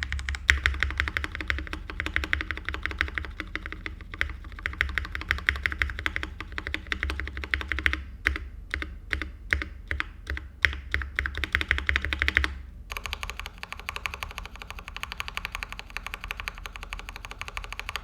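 Typing on a Leopold FC750R mechanical keyboard with lubed Kailh Box Black linear switches and GMK keycaps: a fast, dense run of keystrokes. Around eight to ten seconds in the strokes come slower and separate, and from about thirteen seconds on the sound is thinner, without its low thock.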